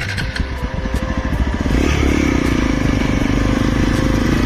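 Hero XPulse 200's single-cylinder engine pulling away uphill, with low, even firing pulses at first and a louder, steadier note as it picks up revs about two seconds in.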